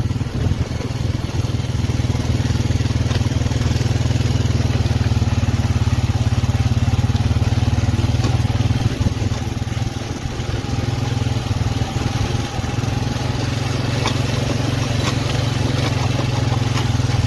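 Farm vehicle engine running steadily, driving across the field at a constant pace.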